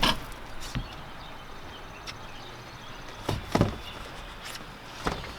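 A few scattered knocks and clunks over low steady background noise: one at the start, a pair a little past the middle and one near the end.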